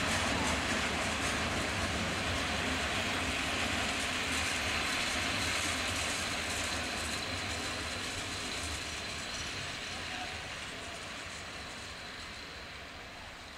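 Wheels of a long freight train of open-top wagons rolling over the rails, a steady running noise that fades gradually as the last wagons draw away.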